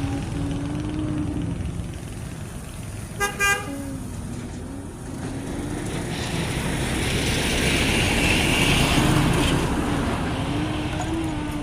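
Road traffic rumbling. A vehicle horn gives a short double toot about three seconds in, and a vehicle passes, loudest about eight seconds in.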